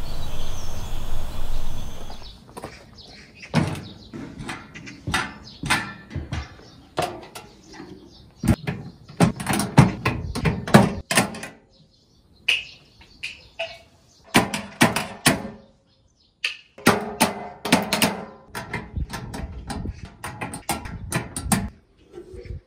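Stainless steel gastronorm pans and their metal latch clamps being handled: an irregular run of clicks, knocks and metallic clanks, with a couple of short pauses.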